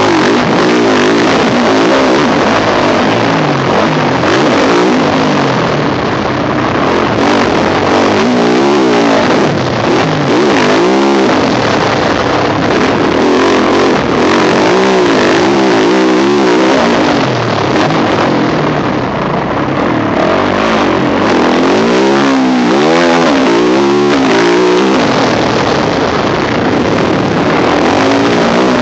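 Yamaha YZ450F four-stroke single-cylinder motocross engine heard on board, its pitch rising and falling again and again as the throttle is opened and closed, over a steady rough noise.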